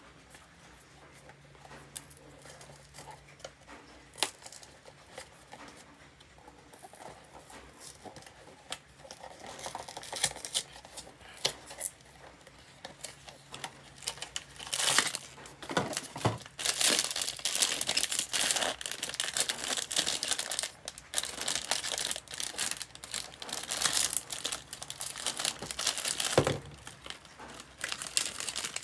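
A cardboard blind box handled and opened, then a foil wrapper torn and crinkled open by hand. A few light taps and clicks at first, then dense crinkling and tearing from about ten seconds in, loudest in the second half.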